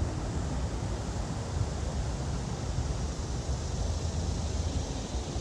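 Wind buffeting the microphone: a steady, fluttering low rumble with a fainter hiss above it.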